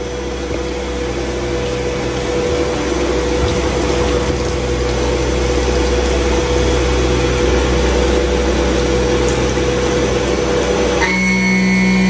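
CNC vertical milling machine cutting a block of aluminium under flood coolant: the spindle gives a steady tone over the hiss of cutting and spraying coolant. About a second before the end, the sound switches abruptly to a lower, steady hum.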